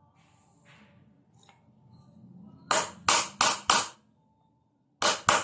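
Hammer striking a metal nail punch to sink a concrete nail deeper into a palochina pine board: four quick sharp strikes about three a second, a pause, then two more near the end.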